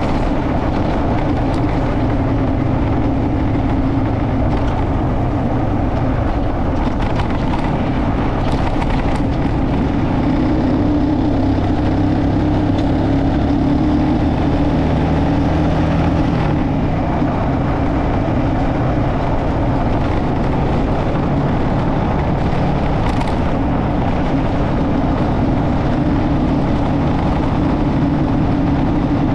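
Motorcycle engine running steadily while riding along a road, with road and wind noise over it.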